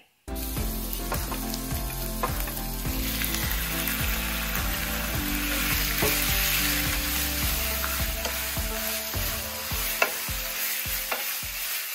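Raw chicken pieces sizzling in hot oil with fried lemongrass in a wok, stirred with a wooden spatula that scrapes and knocks against the pan again and again.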